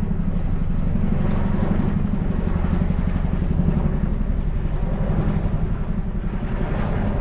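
Boeing CH-47 Chinook tandem-rotor helicopter flying over, its rotor blades beating in a rapid, steady wokka-wokka thud.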